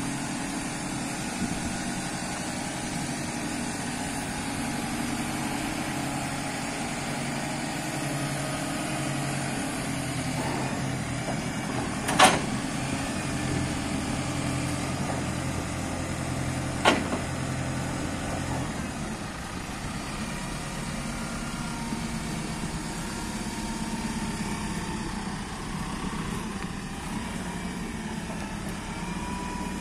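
JCB 535-140 telehandler's diesel engine running steadily while the machine works its boom and then moves off, its note changing a little past the middle. Two sharp knocks sound, one about twelve seconds in and one about seventeen seconds in.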